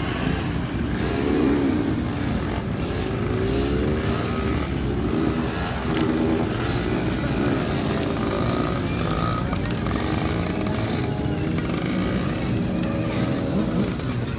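Several motorcycle engines revving and passing, their pitch rising and falling and overlapping over a steady bed of engine and crowd noise.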